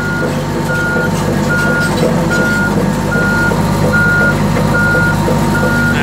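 Komatsu D85EX-15 bulldozer's back-up alarm beeping a steady single tone, about five beeps every four seconds, over the dozer's diesel engine running.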